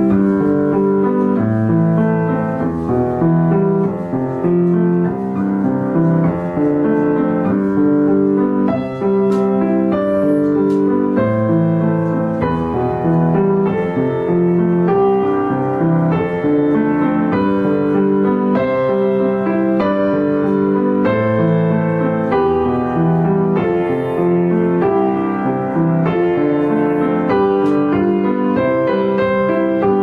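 Background music played on piano or electric piano, a steady run of notes.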